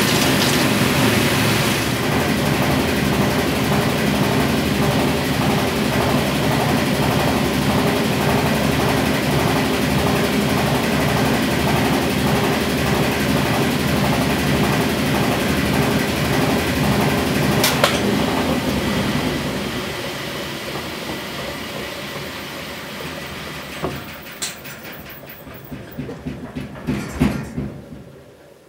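1963 Frigidaire Custom Imperial top-load washer in its spin cycle: the motor and Multi-Matic belt-drive transmission spin the basket with a steady, rhythmic mechanical run. About two thirds of the way in the sound dies away gradually as the basket coasts down toward a stop, with a sharp click and a few knocks near the end.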